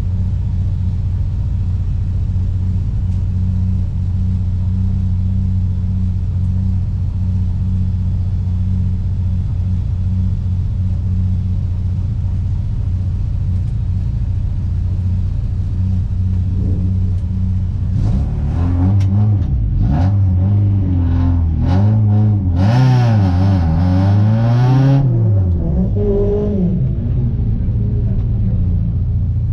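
Renault Clio 1.8's four-cylinder engine idling steadily, heard from inside the cabin; about two-thirds of the way in it is revved up and down several times, with one longer rise and fall near the end, then it drops back to idle.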